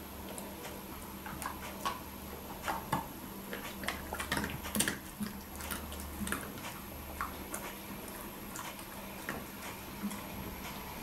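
Alaskan Malamute chewing small bites of food: irregular clicks of its mouth and teeth, thickest and loudest in the middle and thinning out toward the end.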